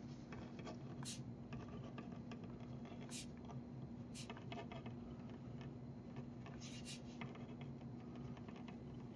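Faint scratching of a ballpoint pen writing words on paper, with a few short sharp ticks and a steady low hum underneath.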